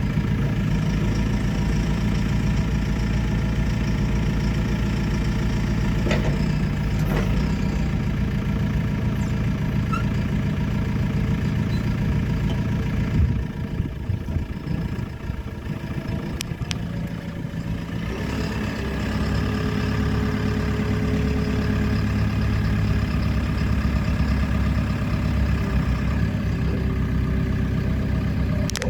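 2015 JCB 3CX backhoe loader's four-cylinder diesel engine running steadily. About halfway through, it drops lower and quieter for a few seconds, then comes back up with a fuller, slightly higher note.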